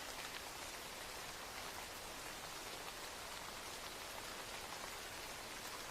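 Steady rain falling, an even hiss dotted with faint drop ticks.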